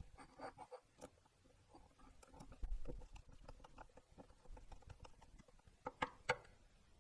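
Faint scattered clicks and light taps of the grinder's metal burr parts being handled and fitted, with a soft thump about three seconds in and a quick pair of sharper clicks near the end.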